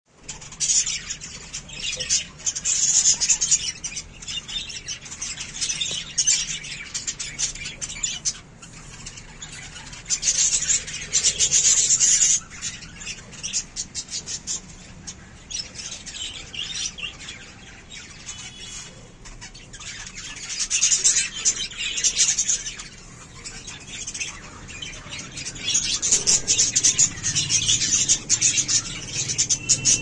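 A large flock of budgerigars chirping and chattering together. The chatter swells loud and dies back down in waves every several seconds.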